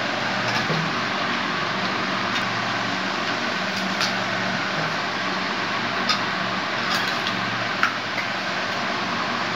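Steady whirring hiss with a low hum, of the kind a running room fan makes, with a few light clicks and taps of cut fruit and dishes being handled.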